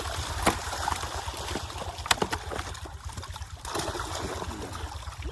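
Water splashing and trickling with a few sharp slaps, from netted fish being handled at a fish pond.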